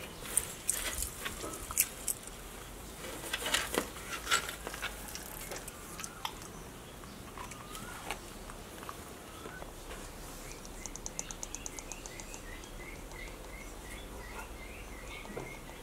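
Crested porcupine chewing and crunching its food, with a scatter of sharp crunches in the first five seconds or so. Later a bird chirps in the background: a quick run of ticks, then a string of short repeated chirps.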